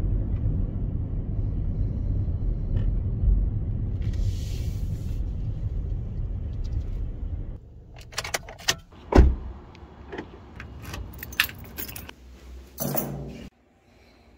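Steady low rumble of a car driving, heard from inside the cabin, which cuts off sharply about seven seconds in. After it comes a run of separate sharp clicks and knocks, the loudest about two seconds later.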